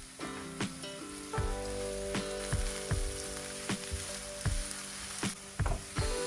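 Sliced red onions sizzling in hot oil in a nonstick frying pan as a wooden spatula stirs them, over background music with a steady beat.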